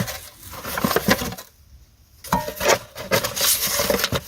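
Handling noise: small knocks, clicks and rustles of heater parts and packaging being moved about, with a short silent pause about halfway through.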